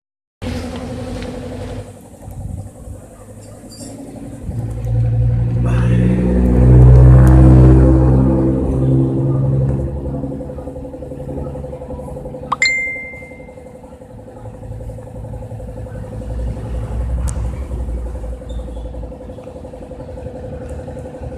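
Mazda 3 1.6 petrol engine turning over and catching, its revs rising to a peak and then falling back to a steady idle; a hard start that the owner traces to a clogged fuel pump strainer and fuel filter. A sharp click with a brief high tone comes about halfway through.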